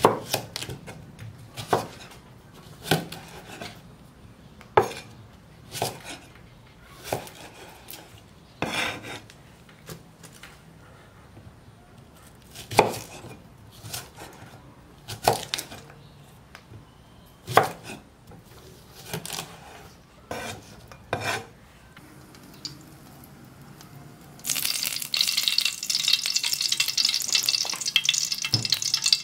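Cleaver chopping a cucumber on a thick wooden chopping board: separate knocks at an uneven pace, about one a second. About 24 seconds in, a steady sizzle of hot oil in a pan takes over.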